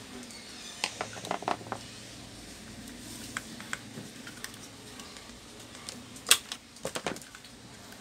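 Light clicks and knocks of a small circuit board and the plastic base of an air purifier being handled. The knocks come irregularly: a cluster about a second in, a few around three and a half seconds, and the loudest knock a little after six seconds.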